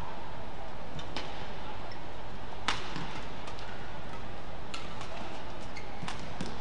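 Badminton rally: rackets striking the shuttlecock in about four sharp cracks, one every second and a half to two seconds, over the steady background noise of the hall.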